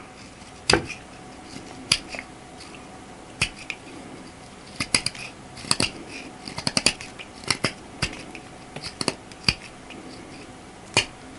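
A thin CPM 10V steel knife edge whittling the tip of an elk antler: irregular sharp clicks and short scrapes as shavings are cut, coming closest together in the middle. The edge catches and hesitates in the very hard antler.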